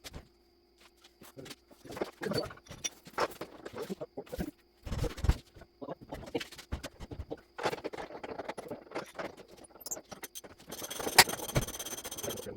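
Irregular knocks, clanks and scrapes of metal parts and tools being handled during truck reassembly. Near the end a steady hiss comes up, with one sharp knock in it.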